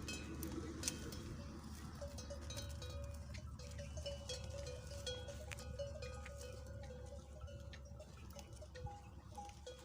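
Livestock bells clinking and ringing, with a low steady rumble underneath.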